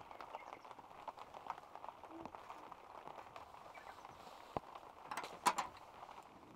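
Light rain falling in scattered, irregular taps, with a couple of sharp clicks about five seconds in as wooden chopsticks are set down on their rest.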